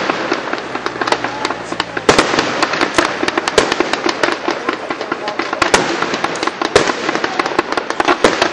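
Aerial fireworks display: a dense, rapid crackle of many small reports, with several louder bangs standing out. The barrage grows louder about two seconds in.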